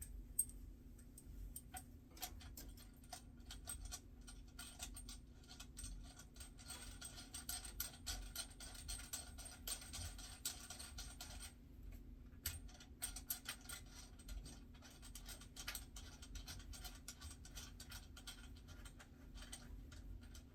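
Small metal hardware clicking and scraping as a screw, washer and nut are handled and tightened by hand, a dense run of light ticks busiest in the middle, over a steady low hum.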